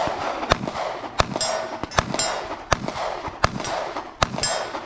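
A string of 9mm shots from a Glock 43 subcompact pistol, fired at a steady pace of about one every three-quarters of a second. Six shots fall in these seconds, each followed by a short ringing echo.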